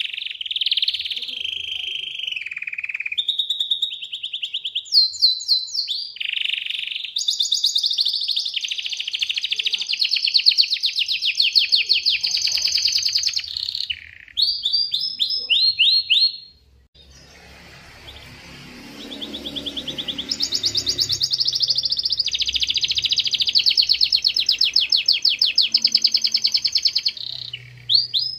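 Domestic canary singing: long, fast trills and rolls of rapidly repeated notes, with a short break about two-thirds of the way through before the song starts again over a low background hum.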